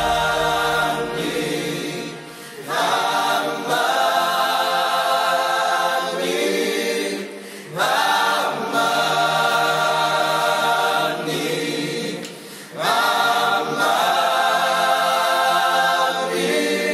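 Congolese gospel choir singing a cappella in long, held phrases, with a short pause about every five seconds.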